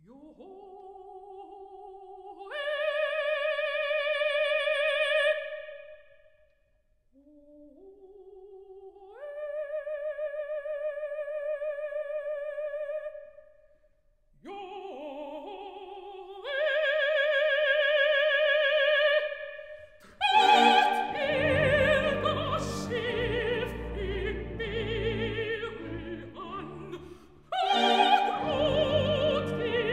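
Operatic soprano singing three rising 'Johohoe' calls with almost no accompaniment, each climbing to a long high note with wide vibrato. About twenty seconds in, a full orchestra enters loudly, and it surges again near the end.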